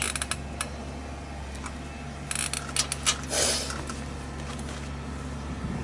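Metal clicks and rattles from hand work on a motorcycle's chrome muffler and mounting, with a few clicks at the start and a cluster of clicks and short scrapes two to three and a half seconds in, over a steady low hum.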